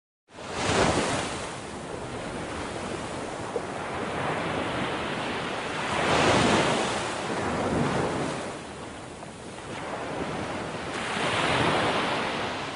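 Sea waves and surf, the noise of the water swelling and fading several times.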